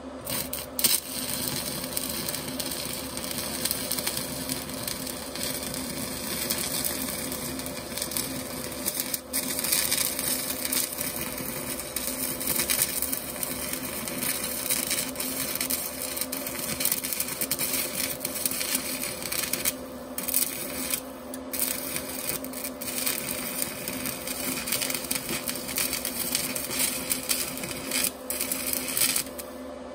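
Stick-welding arc from a Sefaspe 120 A 110 V inverter welder burning a 6013 rod: a steady crackling sizzle that breaks off briefly twice about two-thirds of the way in and again just before the end.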